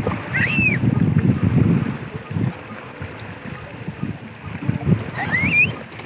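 Low, gusty rumble of wind buffeting the microphone, with two short high squeals from a small child, one just after the start and a rising one near the end.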